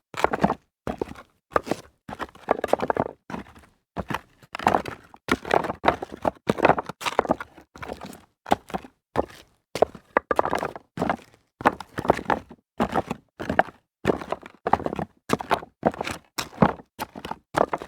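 Footsteps walking over loose rock debris, each step a short gritty crunch of stones shifting underfoot, at about one to two steps a second.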